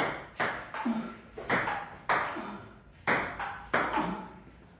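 Table tennis rally: the ball clicks sharply off the paddles and the table, about ten hits in quick, uneven succession, each ringing out briefly.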